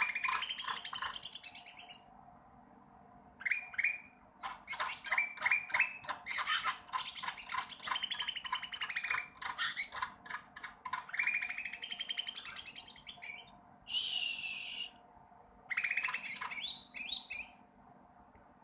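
A young cucak ranting songbird, still in its juvenile moult, practising its song: rapid strings of chirps and trills broken by short pauses. There is a brief rustling burst about three quarters of the way through.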